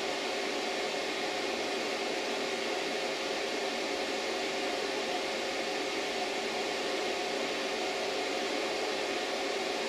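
Steady whooshing air noise with a faint hum from a small electric blower motor running at a constant level, with no distinct cutting strokes.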